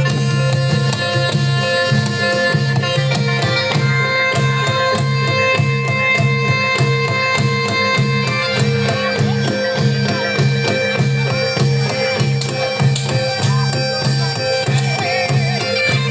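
Live Reog accompaniment music: a Javanese traditional ensemble with a hand drum keeping a steady, even beat under sustained held melodic tones.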